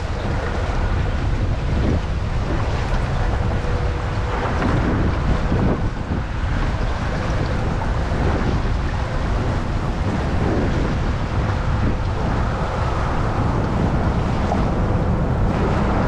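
Steady wind noise buffeting the microphone over fast tidal current rushing and splashing around concrete bridge pilings and the kayak.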